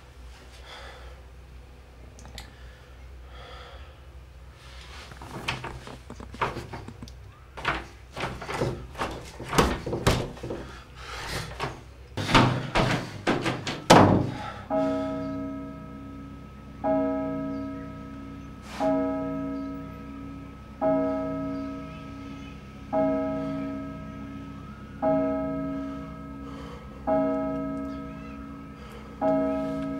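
Banging on a door: scattered knocks that grow faster and louder to a peak about 14 seconds in, then stop abruptly. After that, music: a low bell-like note struck about every two seconds.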